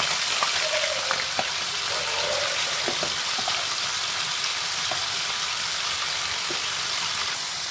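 Paneer cubes sizzling as they fry in hot oil in a pan, a steady hiss. A few light clicks in the first few seconds as they are stirred.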